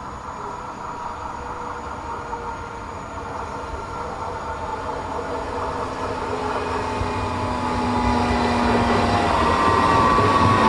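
Pesa Elf 2 (class 27WE) electric multiple unit approaching on the track, its running rumble getting steadily louder. The whine of its electric drive falls slowly in pitch, and about nine seconds in a new set of higher whining tones comes in as it draws close.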